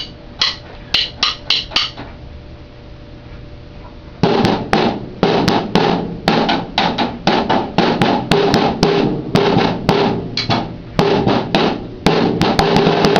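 Drumsticks clicked together in a quick count-in, a short pause, then a drum kit played hard in a fast solo from about four seconds in.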